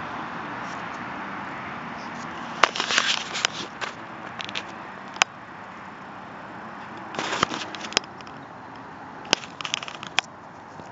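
Close handling noise: crackling rubs and about half a dozen sharp clicks, as a dried gar skull is turned in the fingers just in front of the microphone.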